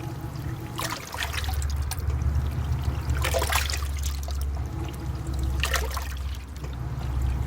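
Water running and splashing inside a washing machine's drum, in surges every two to three seconds over a steady low hum.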